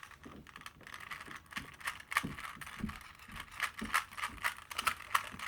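Rubik's cube being turned by hand: a run of quick, irregular light plastic clicks as its layers are twisted.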